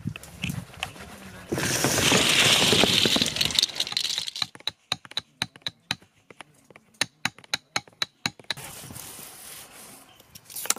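Hands scraping and pushing powder over a bundle of paper tubes, then a quick run of sharp taps as a thin stick is poked into the tubes to pack them.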